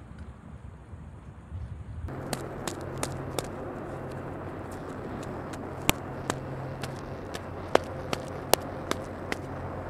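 Sharp scattered clicks and crackles from handling the wrapper of a disposable heat pack, over a steady low engine hum. The hum and clicks start suddenly about two seconds in, after a quieter low rumble.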